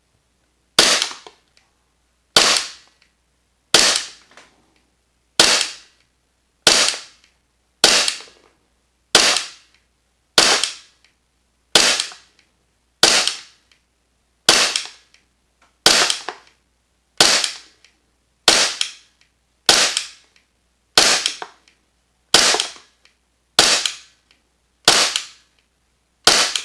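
VFC/Umarex Glock 45 gas blowback airsoft pistol, fitted with an energy-saving cylinder bulb and a soft recoil spring, firing steady semi-automatic shots. Each shot is a sharp crack of gas and slide cycling, about one every second and a half, around twenty in all.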